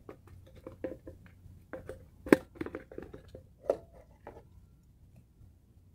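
Small clicks and crackles of hook and fishing line being handled up close, with two sharper snaps about two and a third and three and three-quarter seconds in; the clicking stops after about four and a half seconds, leaving a faint low rumble.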